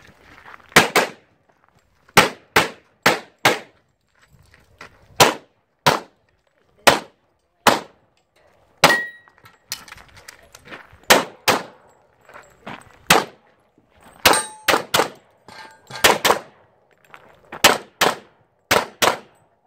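Rapid pistol fire from an STI competition pistol during a practical shooting stage: about twenty shots, mostly fired in quick pairs with short gaps between strings, and steel targets clanging when hit.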